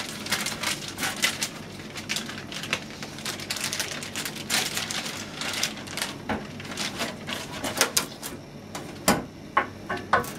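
Plastic wrapping crinkling and rustling as a whole duck is pulled out of its bag, then a few separate sharper knocks near the end as the bare duck is handled in a metal roasting tray.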